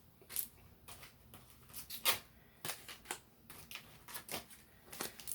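Tarot cards being shuffled and handled: irregular soft flicks and taps, several a second.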